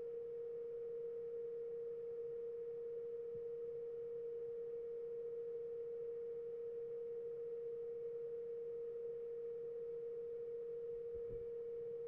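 A single steady mid-pitched pure tone, unchanging in pitch and level, with nothing else heard.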